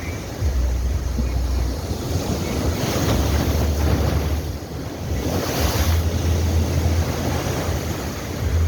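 Ocean waves breaking and washing in, with two louder surges about three and five and a half seconds in. Wind buffets the microphone with an uneven low rumble.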